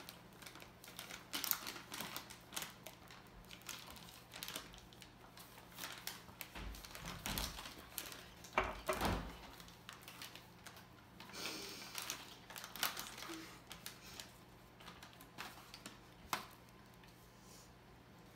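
Plastic inner bag of cake mix crinkling and rustling as the powder is poured and shaken out into a stainless steel mixing bowl, with many light taps and clicks. A few heavier thumps come about halfway through.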